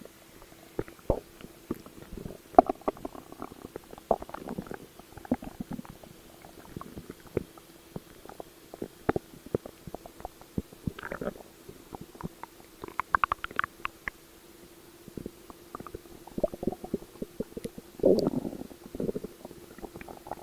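Close-miked human stomach growling and gurgling: many short, irregular pops and bubbling gurgles, with a louder, longer gurgle about eighteen seconds in, over a faint steady hum.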